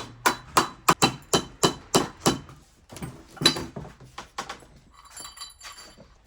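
Hammer tapping: a quick run of about eight sharp taps, roughly three a second, then a few slower taps.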